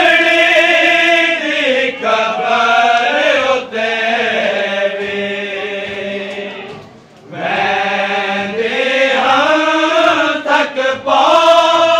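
Muharram mourning lament (noha) led by a man singing into a microphone, with a group of men chanting along in unison; long sung phrases with a short pause about seven seconds in.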